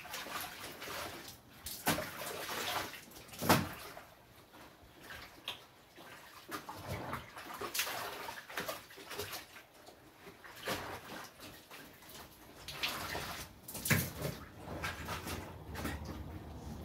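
Clothes being rinsed by hand in a laundry sink and put into a basin of fabric-softener water: irregular splashing and sloshing, with a few sharp knocks, the loudest about three and a half seconds in.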